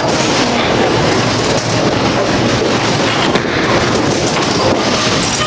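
Bowling ball rolling down the lane with a steady rumble, over the general din of a bowling alley. A single sharp knock a little past halfway.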